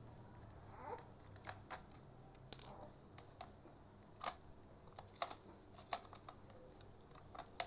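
Irregular small clicks and taps of a screwdriver and the laptop's cooling-fan parts being worked loose inside an HP EliteBook 8460p laptop.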